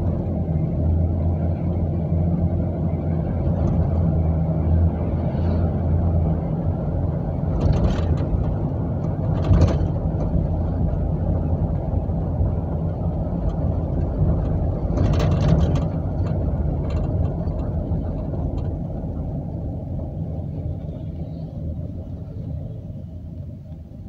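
In-cabin drone of a 1999 Chevrolet Astro van's 4.3-litre V6 and its tyres while driving, with a few short bumps along the way. The sound eases off over the last several seconds as the van slows.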